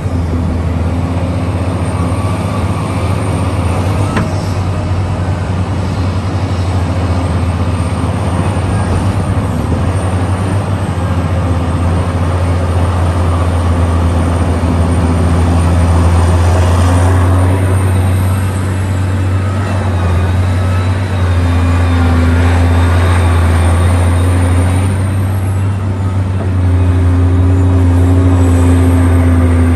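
Large mining excavator's diesel engine running under load, a loud steady deep drone that grows louder about halfway through and again near the end, with a faint high whine rising and falling at times.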